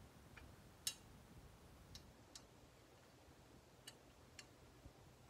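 A handful of faint, irregular ticks and light taps as a saddle hunting platform is handled and its adjustment arm worked, the clearest about a second in. No metal-to-metal clank: the adjustment screw's contact is padded with a square of boot insert under Gorilla tape.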